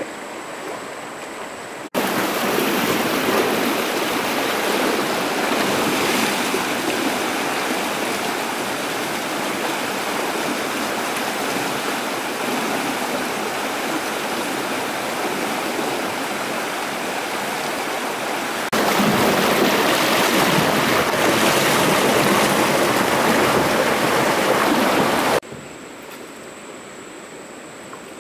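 Shallow stream rapids rushing over rocks, a loud steady roar of water that jumps up abruptly about two seconds in and again later, then drops suddenly to a much quieter water hiss near the end.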